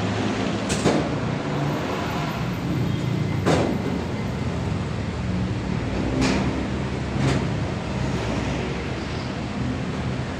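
Steady low mechanical hum, like a nearby engine running, with four sharp metallic clinks as hand tools work on the exposed rocker arms of an Isuzu 6WF1 diesel's cylinder head.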